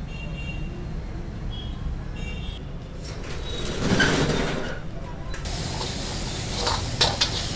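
Rice stir-frying in a wok: a steady sizzle starts suddenly about two-thirds of the way in, with a metal spatula scraping and clinking against the pan. Before it, a low background hum with a short swell of noise in the middle.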